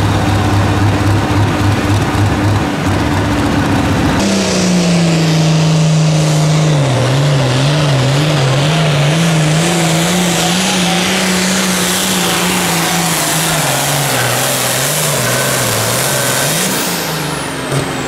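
Turbocharged diesel engine of an International Harvester hot farm pulling tractor, run at full power while it drags a weight-transfer sled. Its pitch wavers up and down repeatedly as the load builds, then rises briefly and drops off near the end as the pull finishes. Before a cut about 4 s in, another pulling tractor's engine runs at a steady lower pitch at the end of its run.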